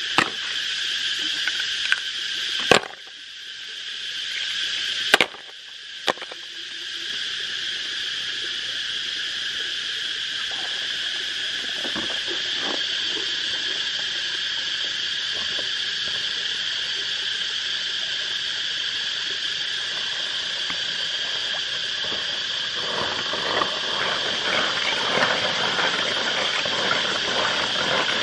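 A steady, shrill chorus of insects trilling, broken by two sharp clicks about three and five seconds in. Near the end, water sloshes and crackles as snails are handled in a plastic basin.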